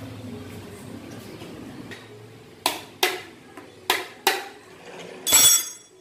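A small metal tin clinks sharply four times as it is knocked or tapped, then gives a brief, louder metallic clatter with a ringing tone near the end.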